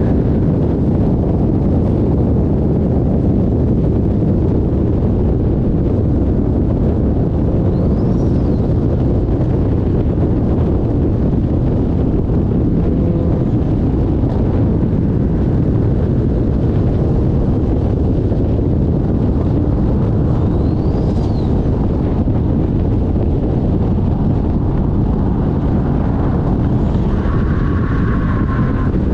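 Nissan RB25 turbocharged straight-six in a 240SX under way, heard from inside the car as a steady, loud mix of engine, road and wind noise. Two brief rising-then-falling whistles come about 8 seconds and 21 seconds in.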